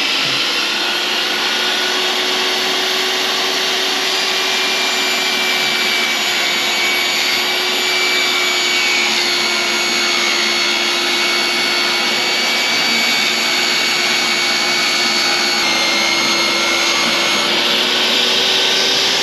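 Portable jobsite table saw running steadily while it rips a long MDF board lengthwise: a steady motor whine with the hiss of the blade cutting through the board.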